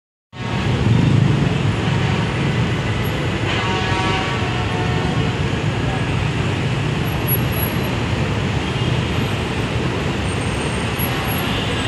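Heavy road traffic in a jam: buses and cars running with a steady low engine rumble and road noise. A vehicle horn sounds briefly about three and a half seconds in.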